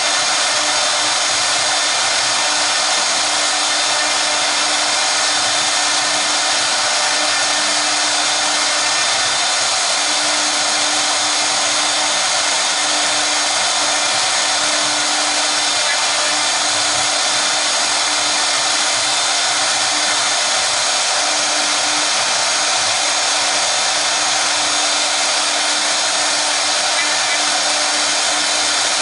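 Two spindles of a 1325 double-spindle CNC router running and cutting with V-bits: a steady, high-pitched whir and hiss with a constant low hum underneath, unchanging throughout.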